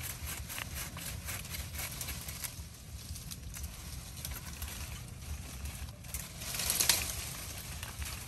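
Leaves and branches rustling and crackling as a man works among tree branches, handling a cut length of branch, with a louder rush of leaves about seven seconds in.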